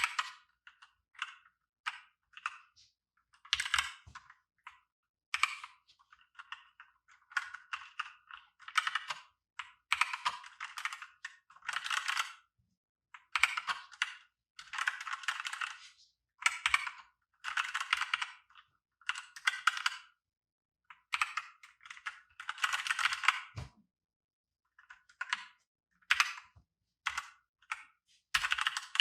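Royal Kludge RK918 mechanical keyboard with red linear switches: keys pressed in quick bursts of many strokes, with short pauses between bursts.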